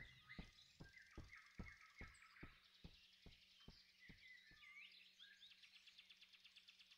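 Near silence: faint forest ambience with small birds chirping high up, and a faint, evenly spaced ticking about two to three times a second that fades away around halfway through.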